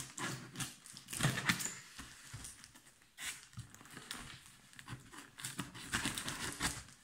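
Tape-wrapped cardboard box being handled and cut open with a knife: irregular scraping, rustling and crinkling of packing tape and cardboard in a string of short rough bursts.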